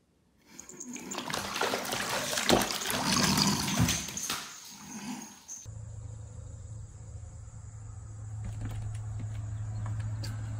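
Water splashing and sloshing in a filled bathtub as a kitten scrambles in it, for about five seconds. After that comes a steady low hum.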